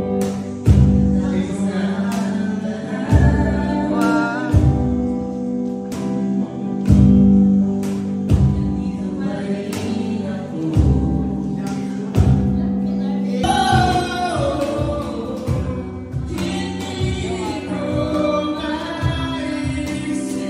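Live acoustic-style band performance: a man and a woman singing to a black hollow-body electric guitar, over a steady low beat. A higher vocal line comes in about two-thirds of the way through.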